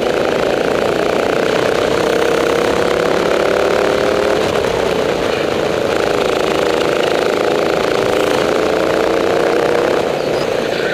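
Rental go-kart engine heard from the driver's seat, its revs climbing under throttle, falling away about four seconds in as the driver lifts off, then climbing again and falling once more near the end.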